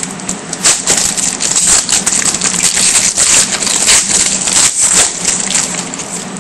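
Trading cards and their foil pack wrapper being handled close up: a dense, irregular run of crinkling and small clicks as the cards slide and flick against each other, over a faint steady low hum.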